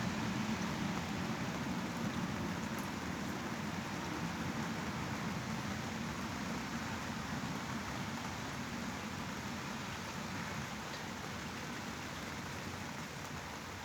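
Steady white-noise sleep sound: an even, rain-like hiss with a low hum that slowly fades away.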